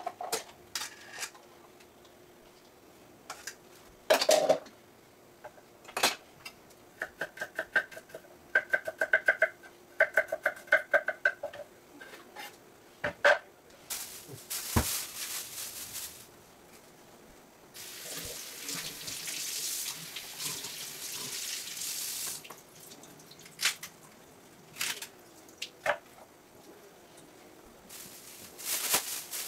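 Kitchen prep sounds: sharp knocks and clatter of dishes and utensils on a counter, a water tap running for about four seconds past the middle, and a plastic bag rustling near the end as a head of celery is handled. A short run of high pulsing chirps comes about a third of the way in.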